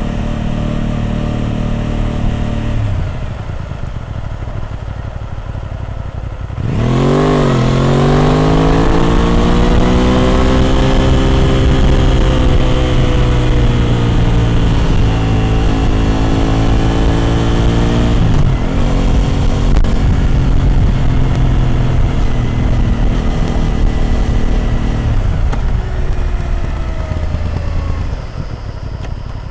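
Aprilia RS 660 Extrema's parallel-twin engine through an SC Project exhaust, heard while riding. The note drops as the throttle is rolled off about three seconds in, then opens up sharply about seven seconds in and pulls steadily. It dips briefly near eighteen seconds and falls away again near the end.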